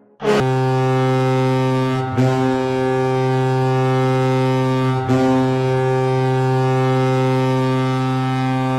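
Ice hockey arena goal horn, a deep ship-style air horn. It sounds in one long, steady blast with two brief breaks, about two and five seconds in, and cuts off at the end.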